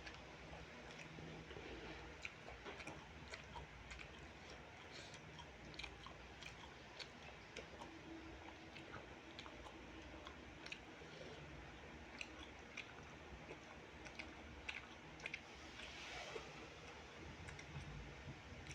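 Faint chewing of fried rice with chicken liver and gizzards, with many small wet clicks and crunches scattered throughout.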